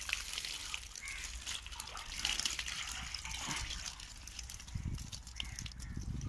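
Water poured from a plastic jerry can into the open end of a metal pump pipe, splashing and trickling onto the soil below. The pump is being primed because it has not drawn water.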